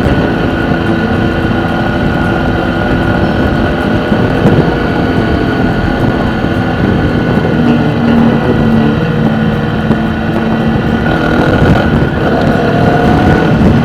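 Car on the move: steady engine and road noise picked up by a dashcam.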